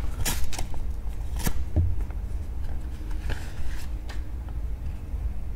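Paper envelope being handled, with a card drawn from it. There are a few short rustles and scrapes in the first second and a half and another cluster about three to four seconds in.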